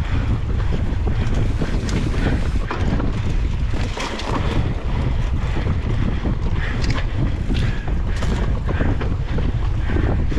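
Wind buffeting the microphone of a handlebar-mounted action camera as a mountain bike is ridden fast over a rough dirt trail, a steady low rumble with frequent rattles and clicks from the bike jolting over the ground.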